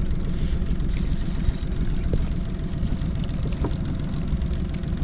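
Boat engine running at low speed: a steady low rumble.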